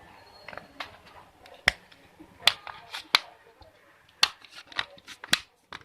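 Plastic latches of an OPPO A1601 phone's back housing snapping loose as it is pried open by fingernail: a series of about eight sharp clicks at uneven intervals.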